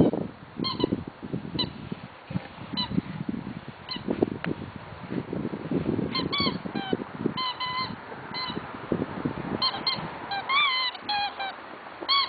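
A rubber chicken squeak toy squeaking and honking in short, irregular squeaks as a cocker spaniel bites and chews it. There are dense runs of squeaks past the middle and one longer, wavering squeak near the end, over low mouthing and chewing noise.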